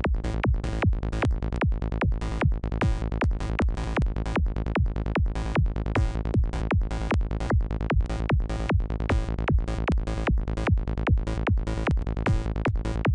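Synth lead from the Native Instruments Massive software synthesizer playing a looped sequence of fast, short, bright notes at 150 BPM: a psytrance lead pattern being built from 16th notes.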